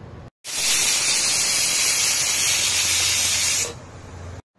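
Pressure cooker whistle: steam jets out loudly under the lifted weight valve as a steady hiss for about three seconds, then cuts off. This is one of the whistles counted to time the cooking.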